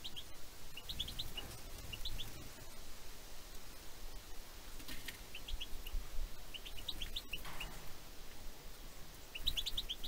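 Small songbirds chirping in short runs of quick high notes, several times over, with the loudest run near the end. A couple of faint clicks come in between.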